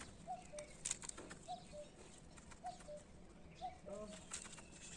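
A bird calling over and over in the background: a short two-note call, the second note lower, repeated about once a second. Faint scattered clicks and taps run under it.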